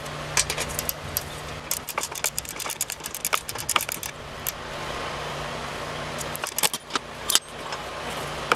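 Ratchet wrench clicking in quick runs as it works a half-inch bolt holding a mower deck's belt guide pin, with a pause in the middle and a few sharper clicks near the end.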